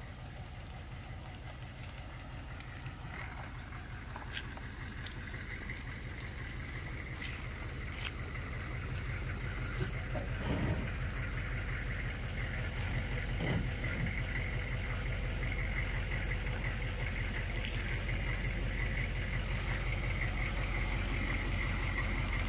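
Pickup truck engine running steadily at low revs, slowly growing louder, with a few brief knocks and a thin steady high tone above it in the second half.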